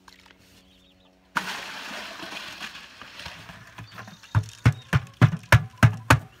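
Soaked grain and water poured out of one plastic bucket into another: a rushing splash starting about a second in and lasting about two seconds. It is followed by a quick run of sharp knocks of plastic buckets being handled and banged together, about three a second.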